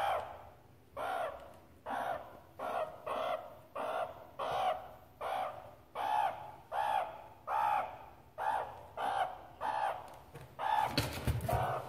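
A meerkat calling over and over, short pitched calls at about one and a half a second. A brief scratching rustle comes near the end.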